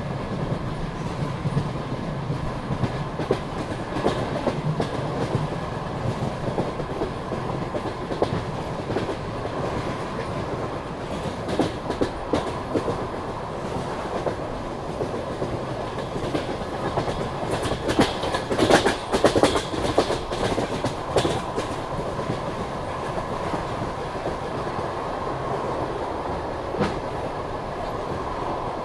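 Passenger train coach running at speed, its wheels clattering over rail joints above a steady rolling rumble. There is a louder run of clacks and knocks about two-thirds of the way through.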